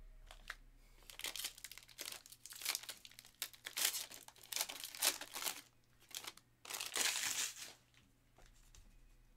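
A Donruss basketball hobby pack being ripped open, its wrapper crinkling and tearing in a run of short, irregular bursts for about six seconds, the loudest near the end.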